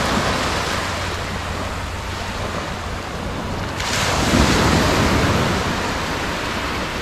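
Small sea waves breaking and washing up on a sandy beach, as a steady surf noise with wind rumbling on the microphone. A wave swells louder about four seconds in, then eases off.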